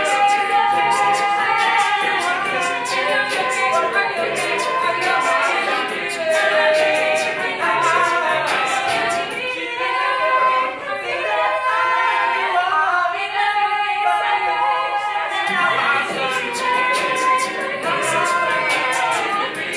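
A cappella group of mixed boys' and girls' voices singing a pop arrangement. A steady rhythmic beat runs under the harmonies, and it drops out together with the low voices for about five seconds in the middle.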